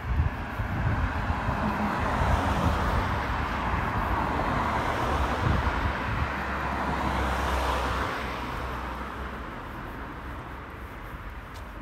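A car passing along the street: its tyre and engine noise swells over the first couple of seconds, holds, then fades away from about eight seconds in, over a low uneven rumble.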